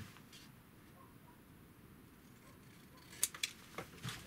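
Scissors cutting paper: a quiet stretch, then a few quick sharp snips about three seconds in and one or two more near the end.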